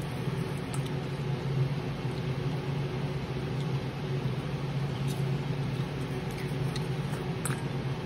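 Steady low machine hum, with a few faint light ticks as fries are handled in a stainless steel bowl.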